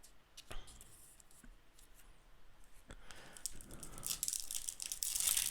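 Trading-card pack wrapper being handled and torn open: a few light clicks, then louder crinkling and tearing near the end.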